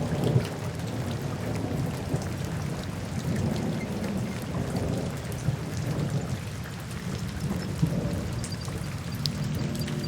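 Steady rain falling, with many small drop ticks and a low rumble underneath that swells and fades.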